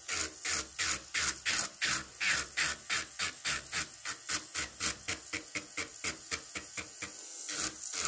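Electric nail drill with a ceramic bit grinding down a gel nail extension in quick back-and-forth strokes, about four a second: the old gel is being filed off.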